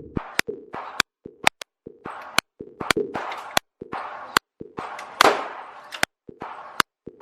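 Gunshots at a shooting range: many sharp, unevenly spaced shots, some louder with a short echoing tail.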